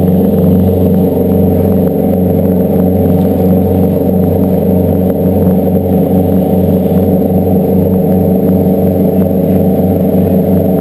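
Boat engine running steadily under way, a loud, even, low drone.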